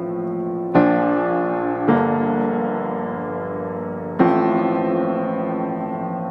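Background music: slow, sustained chords, a new chord struck three times and each left to ring.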